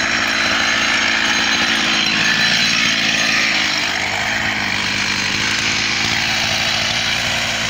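Two-stroke gasoline chainsaw running steadily at low speed while held out of the wood, easing slightly a little past halfway.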